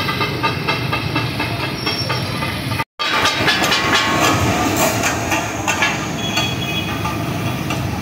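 Busy street noise, cut off by a brief dropout. Then water poured onto a large hot steel tawa griddle hisses and sizzles into steam, with metal spatulas scraping and clattering on the griddles.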